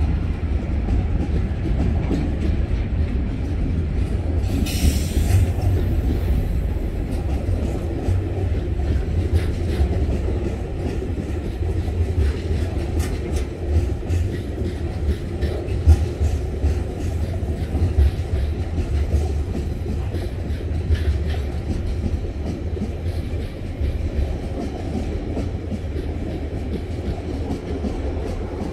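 Container wagons of a freight train rolling past at close range: a steady rumble of wheels on rail with repeated clicking as the wheels cross rail joints. A brief high hiss comes about five seconds in, and the rumble eases slightly near the end.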